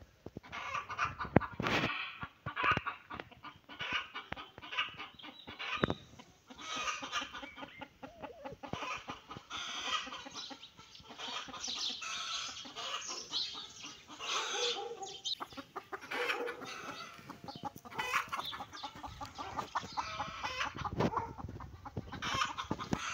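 Chickens clucking repeatedly and irregularly, mixed with frequent short crackles.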